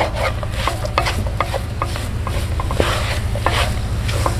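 Wooden spatula stirring and scraping thick cornmeal halwa cooked in ghee around a nonstick wok, in irregular strokes, over a steady low hum.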